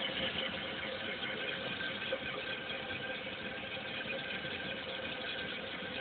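Fill valve in an American Standard toilet tank running as the tank refills: a steady hiss of water with a faint steady hum.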